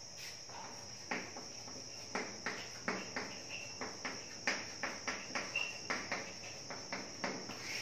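Chalk writing on a blackboard: a string of short, irregular taps and scrapes as the words are written, starting about a second in. A steady high-pitched whine runs behind it.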